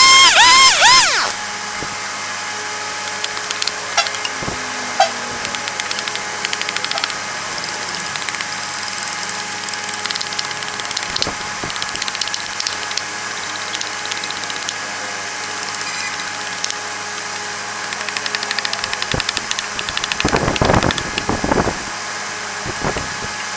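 A power tool whines with its pitch swinging up and down and stops about a second in. Steady workshop noise follows, with scattered light clicks and a run of louder knocks near the end.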